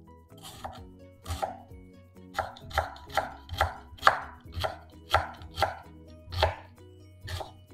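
Chef's knife cutting through a shallot and striking a bamboo cutting board: about a dozen separate knife strokes at an uneven pace, quickest through the middle at roughly two a second.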